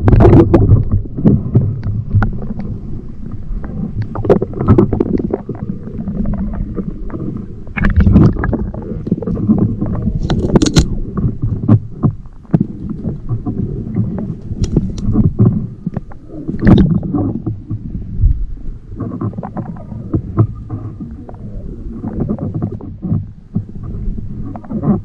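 Muffled, low rumbling of river water heard by a camera submerged in its waterproof housing, with scattered knocks and clicks.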